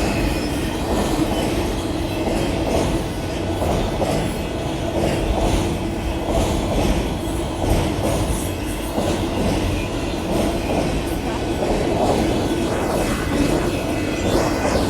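A long Union Pacific freight train of auto-rack cars rolling past a grade crossing: a loud, steady rumble of wheels running over the rails, with clattering and clicks mixed in.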